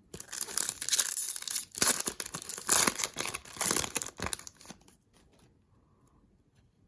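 Foil wrapper of a 2023 Bowman Chrome trading-card pack being torn open and crinkled in the hands; the tearing and rustling stop about five seconds in.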